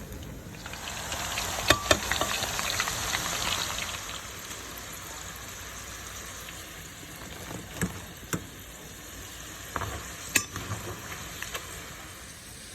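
Chicken nuggets and fries frying in hot oil. The sizzle swells loud about a second in, eases after about four seconds to a steady, quieter sizzle, and is broken by a few sharp clicks.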